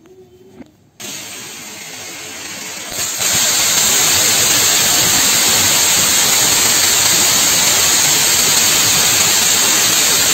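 Golden Lion crackling fountain firework catching about a second in with a hiss, then about three seconds in jumping to a loud, steady rushing spray of sparks that runs on to the end.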